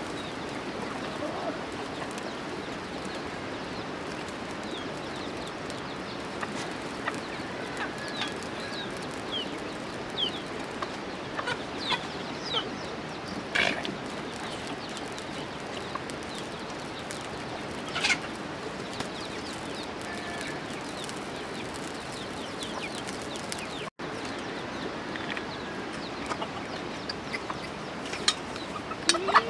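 Domestic chickens clucking around a farmyard, with short high chirps of small birds over a steady background hiss.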